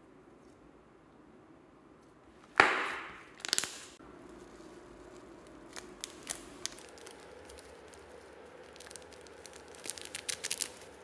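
Slime being handled, with one sudden loud snap and a fading tail about two and a half seconds in and a second smaller burst just after. Near the end, small brown granules are sprinkled onto white slime and land in a quick run of light ticks and clicks.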